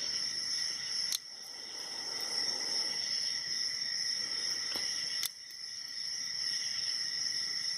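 Steady high-pitched ringing hiss, with two sharp clicks about a second in and about five seconds in, as a hook pick and tension wrench work the pins of an Abus 72/40 aluminium padlock.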